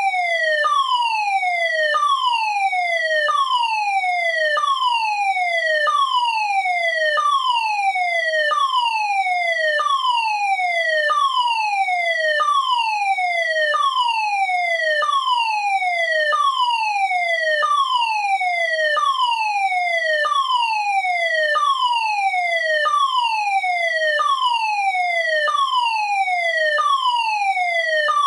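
Electronic fire alarm sounder giving a loud, steady alarm tone: a falling sweep that drops in pitch over about a second and a quarter, then jumps back up and repeats without a break, over and over.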